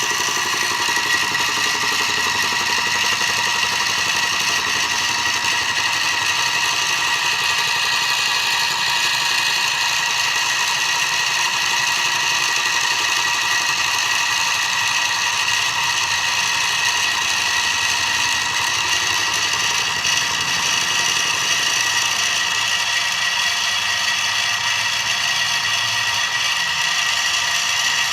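Mini milling machine running steadily with a high-pitched whine, cutting 6061 aluminium.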